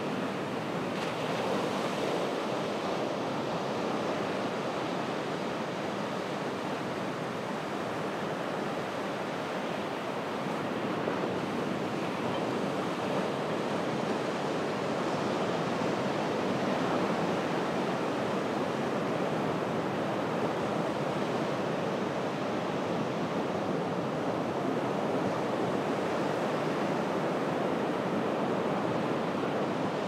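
Ocean surf washing onto a beach: a continuous rush of small waves that swells and eases gently, with no single wave standing out.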